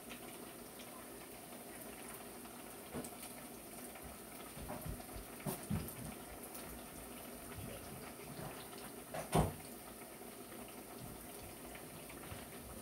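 A steady low hiss with a few light knocks and clinks of cookware as pans on the stove are handled; the loudest knock comes about nine seconds in.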